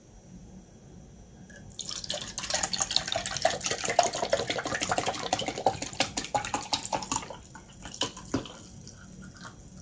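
Apple juice poured from a large plastic bottle into a tall drinking glass: the stream splashes and trickles into the glass, starting about two seconds in and stopping about seven seconds in. A couple of light knocks follow near the end.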